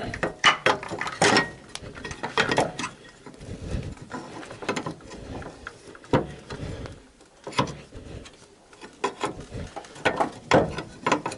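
Irregular metallic clanks, knocks and scrapes as a steel-and-rubber engine mount is worked and twisted into place under a car, its bracket striking the surrounding underbody parts.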